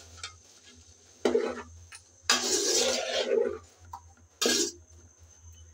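A metal spatula stirring chopped vegetables being sautéed in spice paste in a large aluminium pot: three scraping, rustling strokes, the middle one about a second long, with short pauses between.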